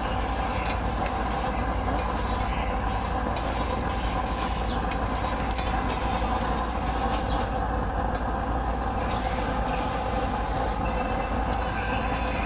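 A steady mechanical drone with several steady pitched tones, over light clinks and scrapes of a ladle stirring in a steel pot.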